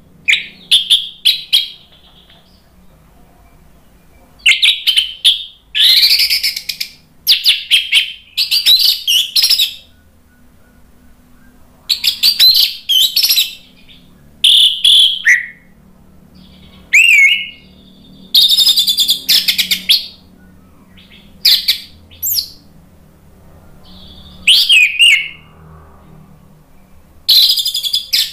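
Orange-headed thrush (anis merah) singing loudly in bursts: about a dozen short, varied phrases of fast whistled notes and glides mixed with harsh, scratchy chatter, separated by brief pauses.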